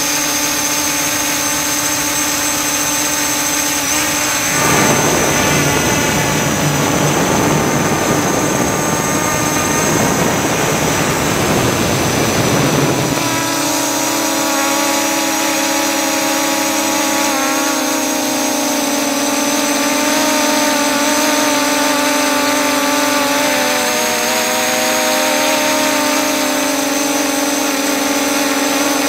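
CG035 quadcopter's brushless motors and propellers running as a steady multi-tone drone, heard through the drone's own onboard camera. From about 5 to 13 seconds in, a loud rushing noise covers the motor tones; after it the tones return, wavering slightly in pitch.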